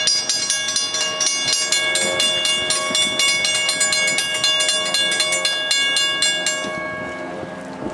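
Locomotive air horn sounding one long, steady chord of several notes, with rapid, regular clicking of the train over the rails. The horn cuts off about seven seconds in and the train noise fades.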